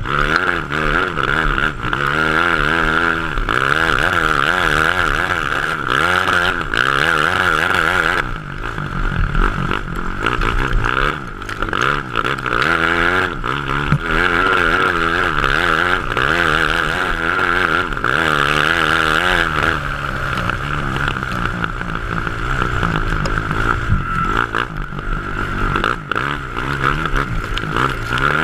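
A 2007 Honda CRF450's single-cylinder four-stroke engine driving a grass kart, heard from on board. It revs up and down continuously through the corners, easing off briefly a few times.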